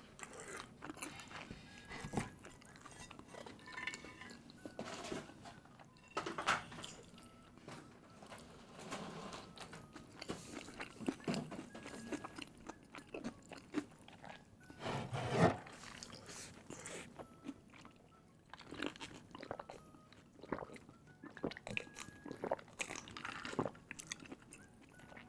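Close-miked eating sounds: mouth chewing and crunching on spicy cheese ramen noodles and crisp chicken katsu, with many short irregular wet smacks and clicks. A louder mouthful comes about 15 seconds in.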